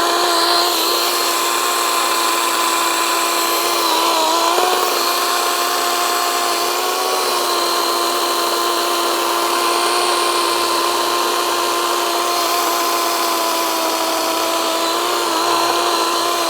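DeWalt 20V Max XR brushless cordless chainsaw running flat out while cutting through a log: a loud, steady electric whine with the chain's rattle. Its pitch sags briefly a couple of times as the chain bites under load.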